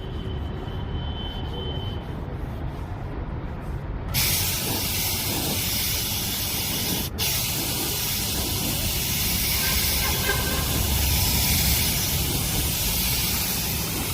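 Compressed-air paint spray gun hissing steadily, starting suddenly about four seconds in and cutting out for an instant about seven seconds in, over a low rumble.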